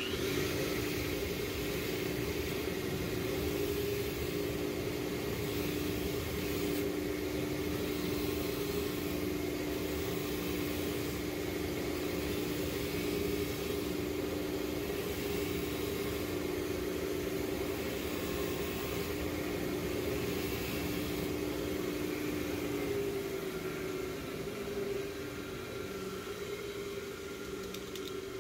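Black & Decker bench grinder running steadily with a wire wheel, an engine valve's face held against it to brush off carbon deposits. About 23 s in the tone changes and the wheel runs on with nothing against it.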